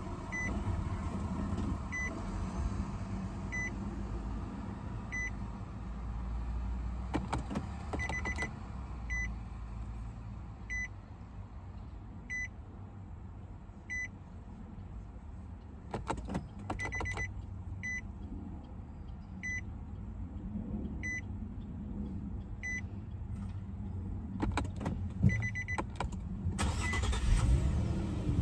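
Infiniti dashboard warning chime beeping steadily, one short high beep about every second and a half, with the door open. Three clusters of sharp clicks from the push-button start and ignition relays come as the ignition is switched on and off, and a rushing noise rises near the end.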